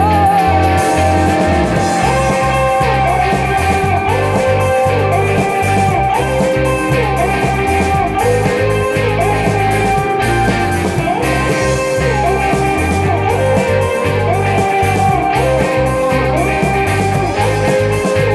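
Live rock band playing: electric guitars over drums, bass and keyboards, with a lead line repeating in short phrases that slide in pitch at their ends.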